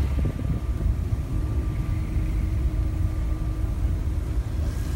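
Steady low rumble of a Mercedes-Benz OH 1626 NG coach under way, heard from inside the passenger cabin: engine and road noise, with a faint steady hum coming in about a second in.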